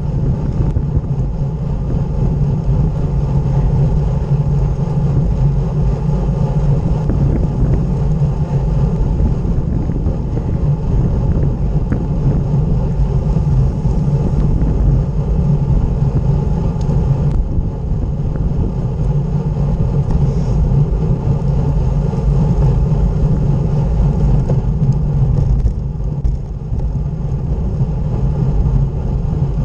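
Steady wind rumble on the microphone of a camera mounted on a moving road bike, mixed with the hum of the tyres rolling on a rough country lane.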